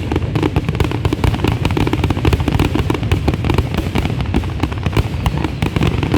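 Fireworks going off in a dense, continuous barrage: many overlapping bangs and crackles every second, with no pause.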